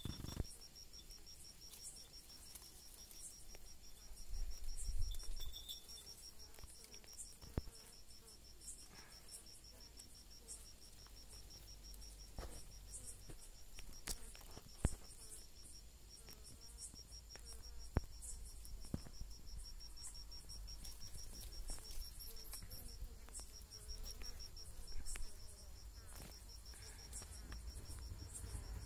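A cricket's steady, high-pitched pulsing trill, with a few soft knocks and a brief low rumble about five seconds in.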